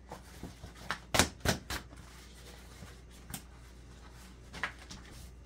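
Handling noises from kitchen items being moved about: a few scattered light clicks and knocks, with a cluster of three between one and two seconds in and two more later.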